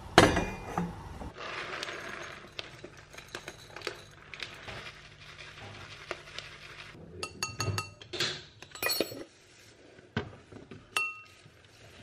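Breakfast being made with dishes: a soft rustling pour, then from about halfway a string of sharp clinks of ceramic bowl and glass that ring briefly.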